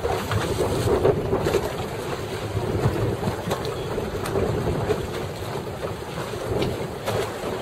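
Wind buffeting the microphone over the steady wash and splash of choppy water.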